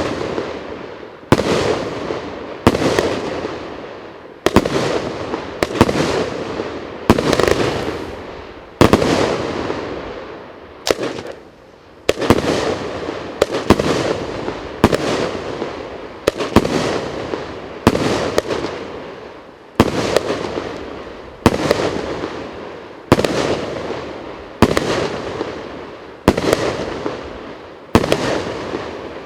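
30 mm cake fireworks firing shot after shot, about one sharp bang a second, each trailing off in a fading rush of noise before the next.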